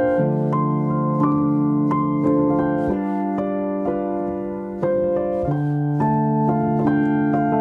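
Solo piano music: held chords and melody notes struck one after another at a slow, even pace.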